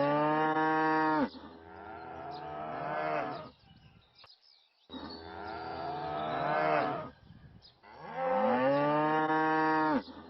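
Cow mooing: four long, drawn-out moos, each about two seconds, with short pauses between them.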